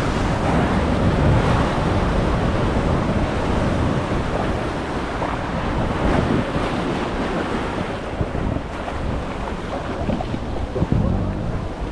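Water rushing and splashing under a ride tube sliding down a Master Blaster water slide, with wind buffeting the microphone. There is a brief louder surge near the end.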